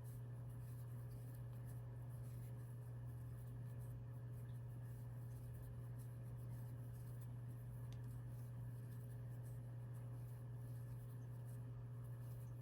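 Faint steady low hum of room or equipment noise, with quiet scratching and rustling of a crochet hook pulling yarn through stitches.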